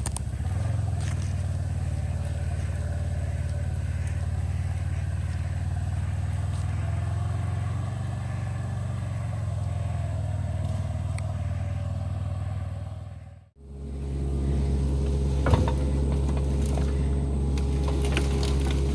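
A steady, low engine-like hum. It cuts out abruptly about thirteen and a half seconds in and comes back with a slightly different pitch, with one sharp click a couple of seconds later.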